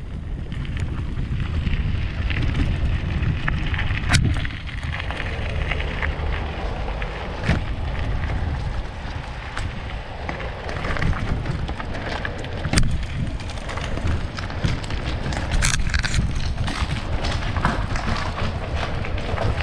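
Wind buffeting the microphone while a bicycle is ridden along a trail, a steady rumble with tyre and frame noise. A few sharp knocks come through along the way.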